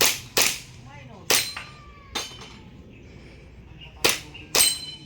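Toy airsoft gun firing six sharp shots at uneven intervals: two close together at the start, two singles, then another quick pair near the end.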